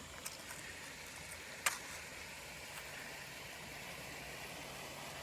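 Creek water rushing steadily through a flood washout, heard as an even hiss, with one sharp click about a second and a half in.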